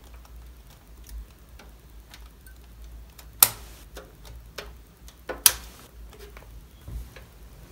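Light plastic ticks of a RAM module being handled and pressed into a motherboard DIMM slot, then two sharp snaps about two seconds apart as the slot's retention latches lock it in.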